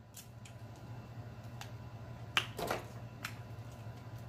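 Close-up eating sounds: crab shell snapping and wet mouth smacks and clicks while crab meat is eaten, a few sharp clicks scattered through, the loudest about halfway, over a low steady hum.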